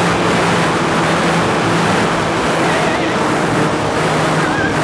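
Fuel-burning engine of an RC PC-9 model aircraft running steadily at a constant pitch in flight, under a loud rush of wind over the onboard microphone.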